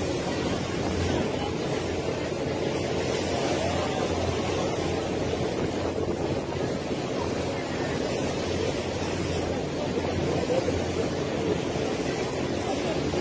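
Steady drone of a boat's engine with water rushing past the hull and wind on the microphone.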